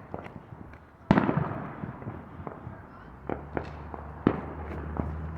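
Fireworks going off: one loud bang about a second in that rumbles away slowly, then a few sharper, quieter cracks spaced out over the next few seconds.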